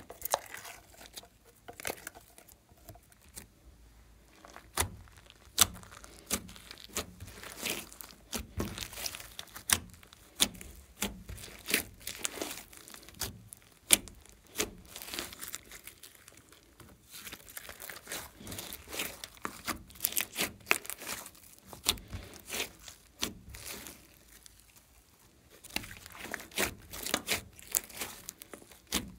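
Hands squeezing, stretching and kneading a large lump of glossy slime mixed with glitter, making irregular sticky clicks and pops, with a few quieter pauses.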